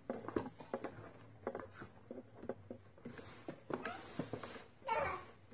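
Irregular soft knocks and taps of a hand mixer's beaters against a plastic mixing bowl of cake batter, with no steady motor sound.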